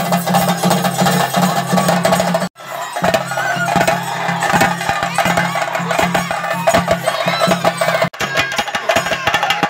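Theyyam chenda drumming: cylindrical chenda drums beaten with sticks in a fast, dense rhythm. The sound breaks off for an instant about two and a half seconds in and again near the end.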